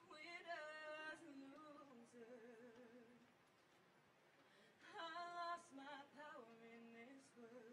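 A woman singing solo and unaccompanied into a microphone, softly. Two slow phrases with vibrato on the held notes, about a second and a half apart.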